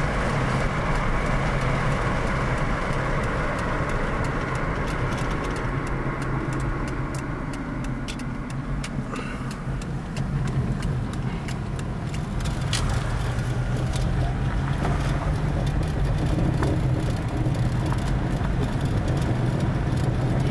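Car driving, heard from inside the cabin: a steady engine drone under road and tyre noise, which eases off about a third of the way in and builds up again, with scattered faint ticks.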